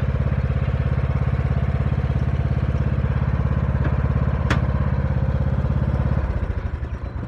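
Riding lawnmower's engine running steadily, with one sharp click about four and a half seconds in, then shut off about six seconds in and running down to a stop.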